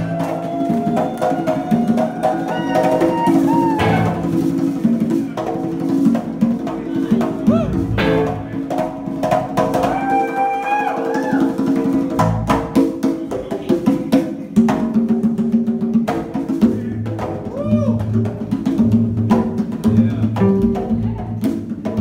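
Live band jamming: a guitar plays sliding, bending melody lines over bass, drum kit and hand-drum percussion. The music runs continuously.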